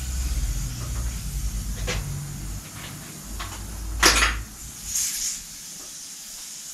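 A bicycle wheel with its tyre being handled and turned: low rubbing and scuffing, a couple of light clicks, and one sharp knock about four seconds in.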